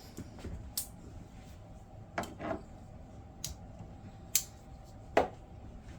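Scattered light clicks and taps of small folding pocket knives being handled and set down, about six sharp ticks spread over a few seconds.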